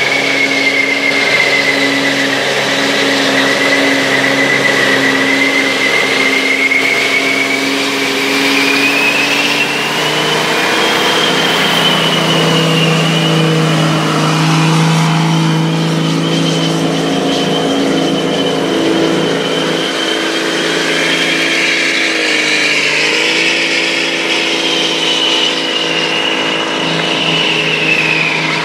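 Diesel Dodge Ram 2500's Cummins engine held at high revs during a burnout, the rear tyres spinning in their own smoke. The engine note is steady and climbs a step about ten seconds in, with a high, wavering whine running above it throughout.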